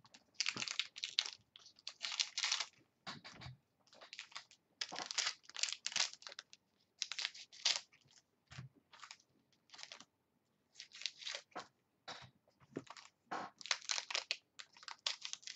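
Trading-card pack wrapper being torn and crinkled open by hand, in an irregular run of short rustling crackles with brief pauses between them, ending with scissors cutting the wrapper.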